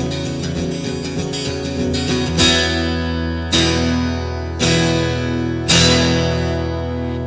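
Acoustic guitar strummed quickly, then four single full chords struck about a second apart, each left to ring out: the closing chords of a song.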